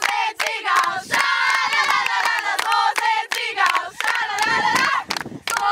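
A group of girls' voices chanting and calling out together, over frequent sharp hand claps and slaps from a circle clapping game.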